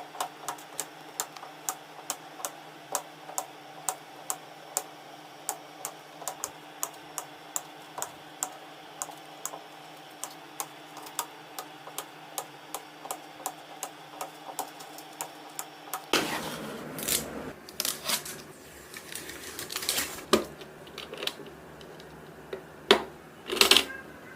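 Sharp, evenly spaced clicks, about two to three a second, over a steady hum. About two-thirds of the way in they give way to irregular, louder knocks and clatter of hard parts being handled.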